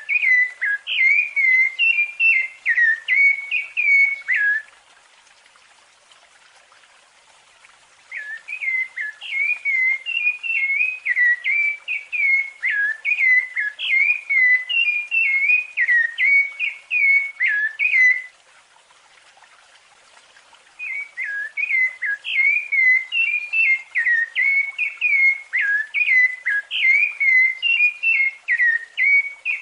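Rufous-bellied thrush (sabiá-laranjeira) singing its fluted song: bouts of quick, clear whistled notes. The song breaks off for a few seconds twice, about four seconds in and again about eighteen seconds in.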